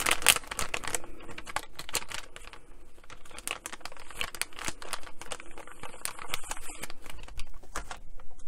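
Crinkling and crackling of a foil-lined plastic packet of leather wipes being handled and opened, with many quick irregular clicks as the resealable flap is peeled back.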